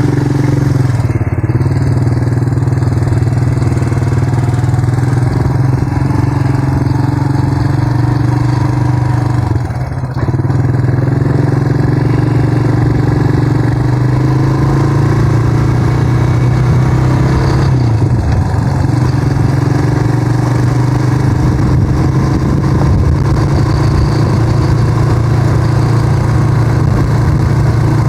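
Suzuki motorcycle engine running steadily under way, with a brief drop in revs about ten seconds in and another change in engine note a little past the middle.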